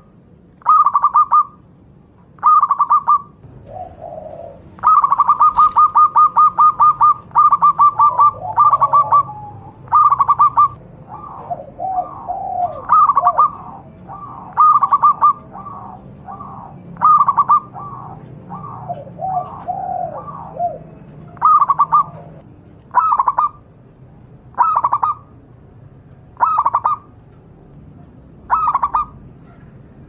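Local Javanese zebra dove (perkutut, Geopelia striata) singing: its rapid, rolling coo phrases repeat every one to two seconds. Between about 11 and 21 seconds, lower notes that bend up and down come in among the phrases.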